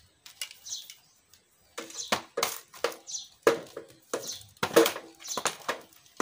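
Rubber-insulated welding cables being pulled out of a hard plastic carry case: an irregular string of rustles, squeaky scrapes and light knocks, with a short lull about a second in.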